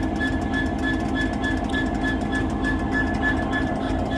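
Class 66 diesel-electric locomotive's two-stroke V12 engine idling while stopped: a steady hum, with a higher tone pulsing about three times a second.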